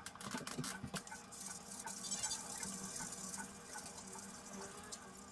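Eggs being beaten with a fork in a ceramic plate: quick light taps and scrapes of the fork against the plate, busiest around the middle.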